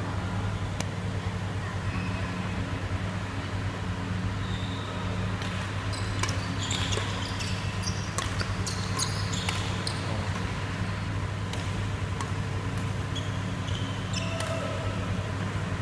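Badminton doubles rally: rackets striking the shuttlecock in quick succession and shoes squeaking on the court, heard as a run of sharp hits and squeaks in the middle, with a few more near the end. A steady low hum runs underneath.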